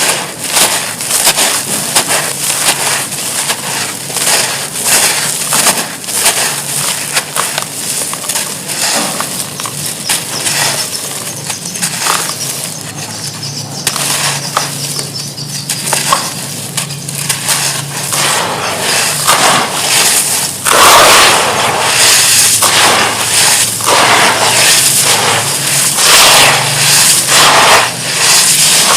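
Gritty wood charcoal being crushed and crumbled: a dense, irregular run of crunches and crackles. It grows louder and denser about two-thirds of the way through.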